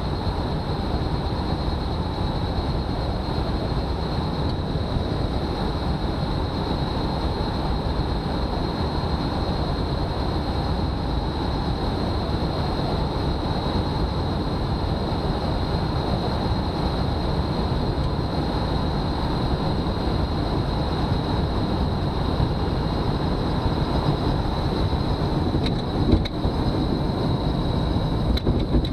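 Velomobile rolling fast on asphalt: a steady rumble of tyres and wind carried through the shell, with a thin high whine running over it. A short bump sounds near the end.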